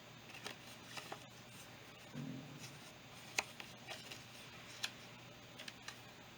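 Faint handling of Yu-Gi-Oh trading cards: scattered light clicks and rustles, the sharpest a little over three seconds in.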